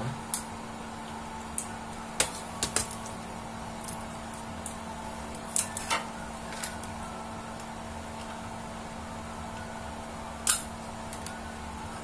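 Scattered small plastic clicks and light knocks as a fiber-optic SC fast connector, the drop cable and a media converter are handled and connected, the sharpest click about ten seconds in, over a steady low hum.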